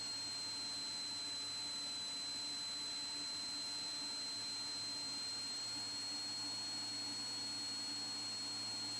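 Faint, steady drone of the Cessna T206's engine with a constant high-pitched whine over it.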